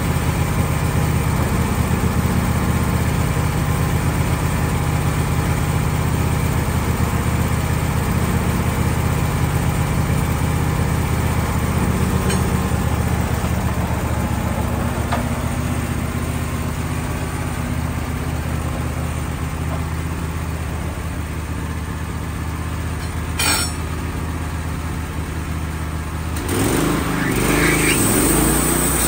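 Wood-Mizer LT15 band sawmill's engine running steadily, with one sharp click about three-quarters of the way through. Near the end the engine's pitch rises as it revs up.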